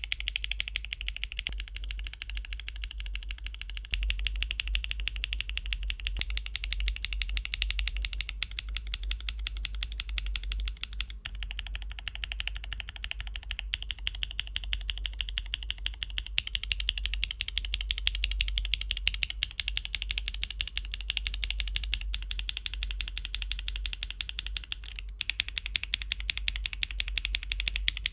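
Fast typing on a mechanical keyboard with Akko switches: a dense, continuous run of keystroke clicks and clacks. The sound changes briefly every few seconds as it moves from one switch type to the next.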